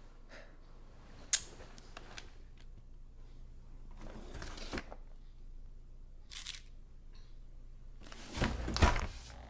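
A few separate handling sounds: a sharp click about a second in, a cabinet drawer sliding open around four seconds in and stopping with a knock, a short hiss, and a heavy low thump near the end, the loudest of them.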